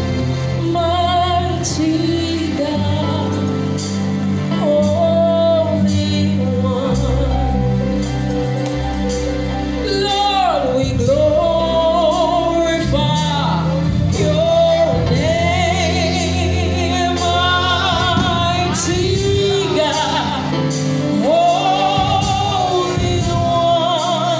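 Live gospel worship singing: a woman sings a wavering, vibrato-rich melody into a microphone over steady instrumental backing, with short percussive clicks keeping time.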